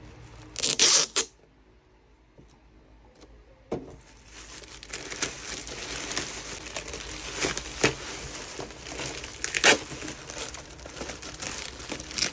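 Plastic packaging being handled: a short loud burst of plastic noise about a second in, a knock near four seconds, then continuous crinkling and crackling of a plastic mailer bag and bubble wrap as a boxed plastic drawer organizer is unwrapped.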